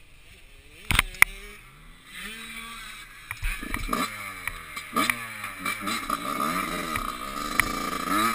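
Dirt bike engine pulling away and accelerating, its pitch climbing in several rising sweeps with drops between them as it shifts up through the gears. Two sharp knocks about a second in.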